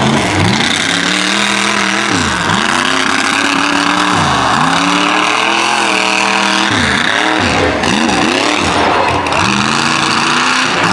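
Mega mud truck's big engine revving hard and easing off over and over, its pitch climbing and falling every couple of seconds as the driver works the throttle.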